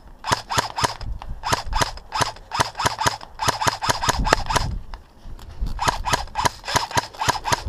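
Airsoft rifle firing rapid single shots, about five sharp cracks a second, with a brief pause about five seconds in before the shooting resumes.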